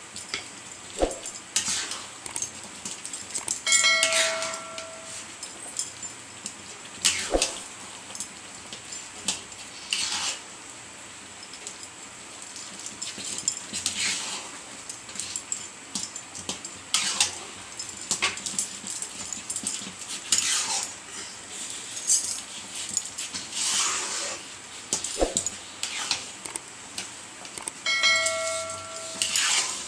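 A steel ladle scraping and knocking against a steel kadhai as thick semolina dough is stirred, in irregular strokes every second or two. A short chime sounds twice, about four seconds in and near the end, the second with a subscribe-button animation.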